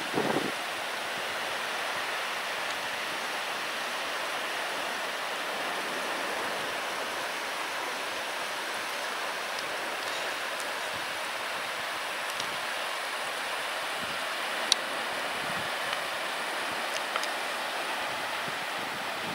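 Glacial meltwater rushing steadily in an even hiss, with one sharp click about fifteen seconds in.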